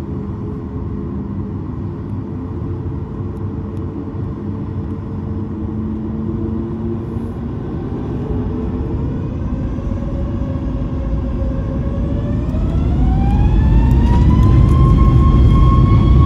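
Boeing 737 MAX 9's CFM LEAP-1B jet engines heard from inside the cabin, first running steadily at low power with a rumble. About twelve seconds in they spool up with a rising whine that settles at a higher pitch, and the rumble grows louder as thrust is set for the takeoff roll.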